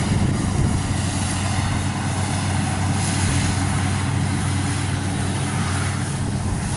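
Kubota rice combine harvester's diesel engine running steadily under load as it cuts ripe rice: a constant, even drone.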